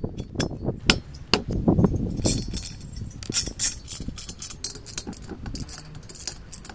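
Metal knocks and clinks as a Vespa scooter's finned cylinder head is handled on the engine, then a quick run of light metallic clicks from about two seconds in as a head nut is turned down its stud with a nut driver.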